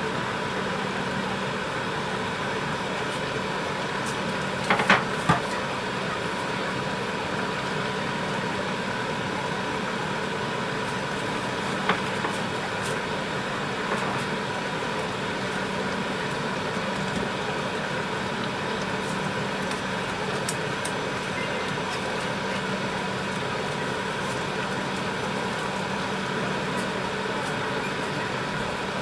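A steady machine hum with a fixed tone, like a kitchen exhaust fan, runs over a simmering pot of tteokbokki. A ladle clinks against the pot a few times about five seconds in, and once more near twelve seconds.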